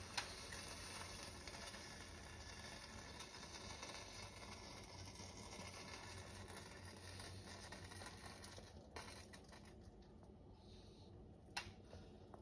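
Near silence: faint steady room hiss, with a sharp click just after the start and a softer one about a second before the end.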